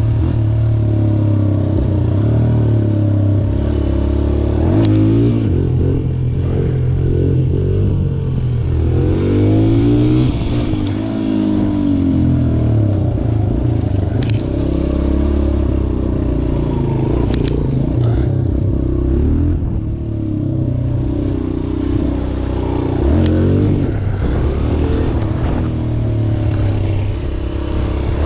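Suzuki DR-Z125L dirt bike's single-cylinder four-stroke engine running while ridden, its pitch rising and falling with the throttle. A few sharp clicks come through in the second half.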